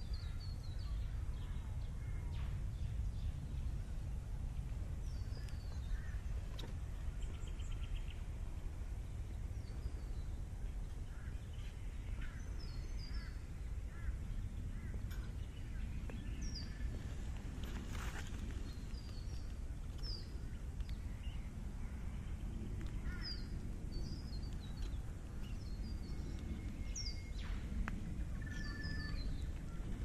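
Many short bird calls and chirps from several birds, scattered all through, over a steady low background rumble.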